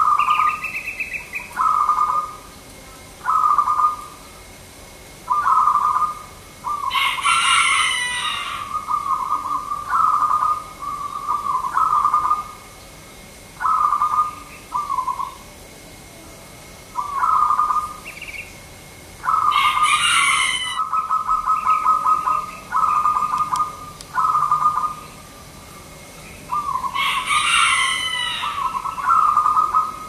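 Caged zebra dove (perkutut) singing: short phrases of rapid, trilled cooing notes, repeated every second or two. Three times a louder, higher call from another bird cuts across the cooing.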